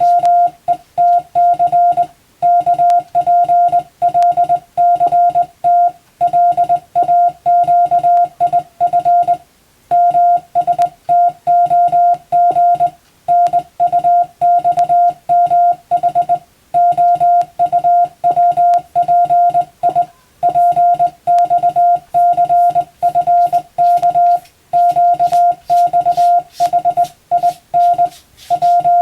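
Morse code (CW) tone keyed by hand on a telegraph key: a single steady beep of about 700 Hz switched rapidly on and off into dots and dashes, sent in short groups with brief pauses between them. It is practice text from a European-language telegram drill for the radiotelegraph operator exam.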